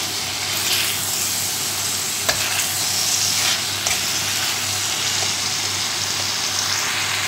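Chopped cabbage and bell pepper sizzling in oil in a wok as they are stir-fried with a spatula, a steady hiss with one faint knock of the spatula about two seconds in.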